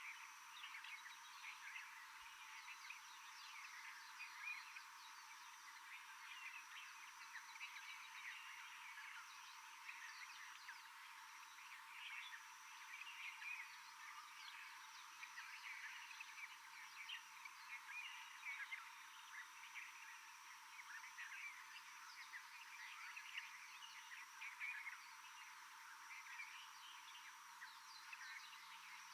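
Faint, dense chorus of many overlapping short chirps and trills from small animals calling in a tropical forest, over a steady thin high tone.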